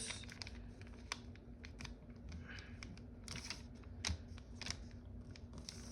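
A sheet of foil origami paper being folded and creased by hand: faint rustling with scattered sharp clicks.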